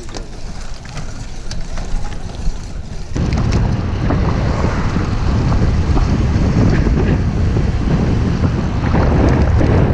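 Wind buffeting the camera microphone while riding a bicycle: a loud, dense rumble that begins suddenly about three seconds in as the bike gets up to speed, after a quieter stretch with a few light clicks.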